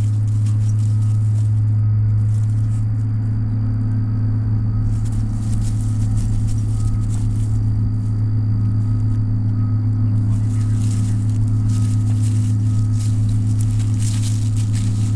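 A steady low mechanical hum runs throughout. Faint crackling and rustling comes and goes over it.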